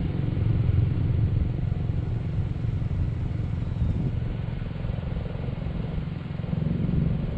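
Jeep Renegade's engine running as the SUV crawls up a dirt slope, a steady low rumble.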